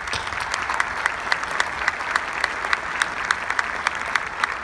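Large audience applauding, with a nearby clapper's sharp claps standing out about four times a second.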